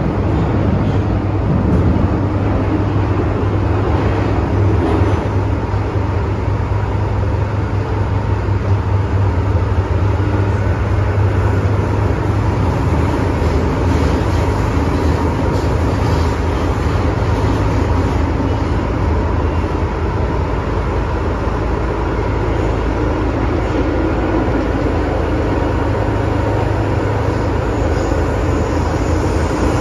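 Interior running noise of an MTR Metro-Cammell M-Train electric multiple unit: a steady low rumble of wheels on rail, with a thin steady high tone above it.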